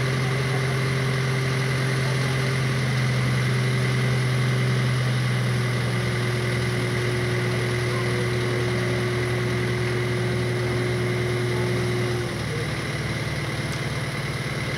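Liebherr mobile crane's diesel engine running at raised revs with a steady, even hum while it powers the lift lowering a motorboat. About twelve seconds in the revs drop back to a lower, quieter idle as the boat reaches the water.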